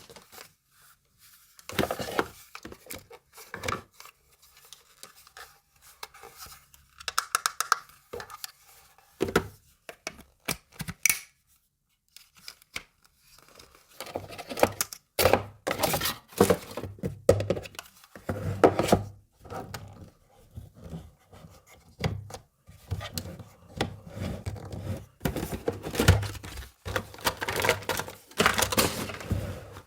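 Unboxing of a miniature plastic toy kitchen set: packaging rustling and tearing, with small plastic parts clicking and knocking as they are handled, in irregular bursts with short pauses.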